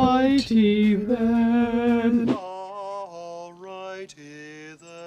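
A man's voice chanting in long held notes, like a meditation mantra. After about two seconds it drops to a quieter run of shorter held notes that change pitch.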